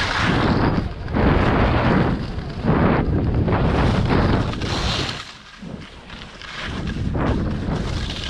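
Wind buffeting the microphone and skis hissing and scraping over packed snow during a fast downhill ski run, swelling and easing in surges, dropping off for a moment about five seconds in.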